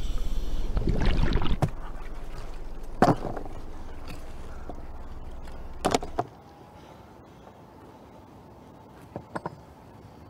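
Low underwater rumble and water wash, louder in the first second and a half, with a sharp knock about three seconds in and another about six seconds in, where the rumble cuts off. After that a quieter water-surface ambience, with a quick pair of clicks near the end.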